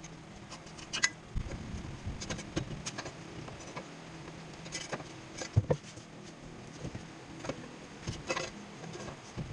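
Hand tools on the car's lower-arm bolts: irregular metallic clicks, clinks and light knocks as sockets and wrenches are handled and worked, with a louder knock about five and a half seconds in.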